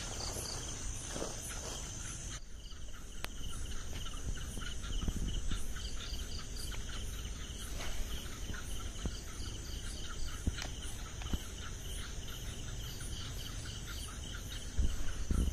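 Night insects such as crickets chirping: a steady high-pitched trill with rapid pulsing chirps beneath it. A low rumble and a few faint clicks sit underneath.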